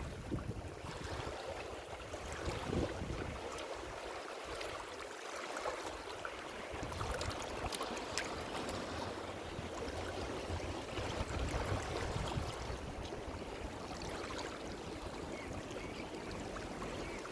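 Ocean waves washing on a shore: a continuous hiss of moving water. The deep rumble drops away for a few seconds early on, then comes back.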